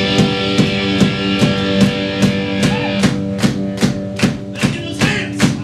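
A rock band playing live: a steady drum beat under held guitar chords. From about three seconds in, sharp hand claps join on the beat.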